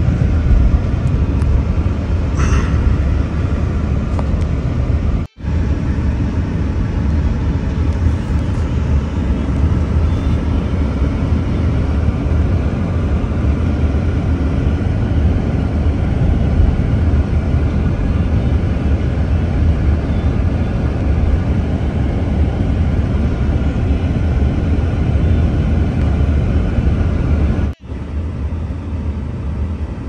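Car interior noise while driving on a wet, snowy road: a steady low rumble of engine and tyres, cut off briefly twice.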